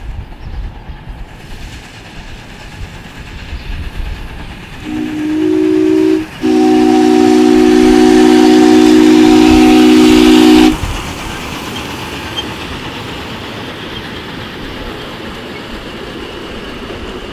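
Chime whistle of a 7.25-inch gauge live-steam Union Pacific 'Big Boy' model locomotive, sounding a chord of several notes: a short blast about five seconds in, then a long blast of about four seconds. Under it the train and its scale freight cars run steadily along the track.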